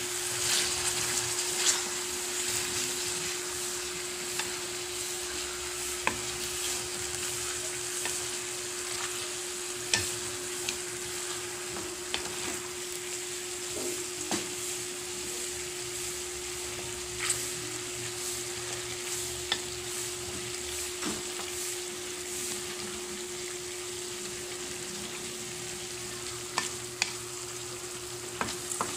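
Chicken pieces sizzling in hot oil in a wok as they are stirred and turned over with a wooden spatula, the frying giving a steady hiss with scattered scrapes and knocks of the spatula against the pan. The chicken is being flipped after its underside has browned, so the other side can fry.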